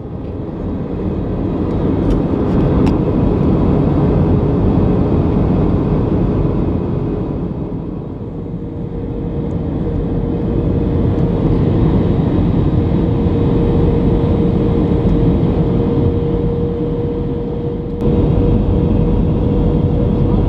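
Jet airliner cabin noise at a window seat on approach: the steady rumble of the engines and rushing airflow, with a steady engine hum. The noise eases off briefly in the middle and steps up suddenly near the end.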